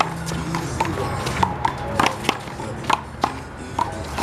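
Rubber handball rally: a string of sharp slaps and bounces as the ball is struck by hand and hits the wall and the pavement, irregular and about two a second, over low background music.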